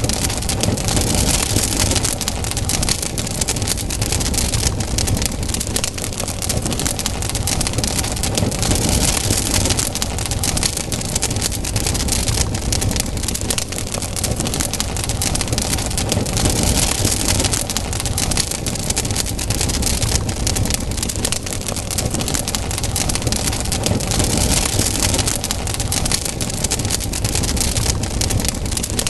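Campfire burning, wood crackling and popping in a dense, steady stream of small snaps over a low rumble of flame.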